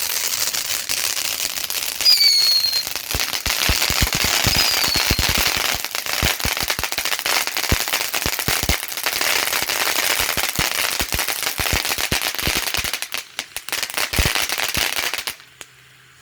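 Pumpkin Chunkin firework fountain spraying with a loud hiss, full of dense crackles and pops, with a short falling whistle about two seconds in and another a couple of seconds later. It cuts off abruptly near the end as the fountain burns out.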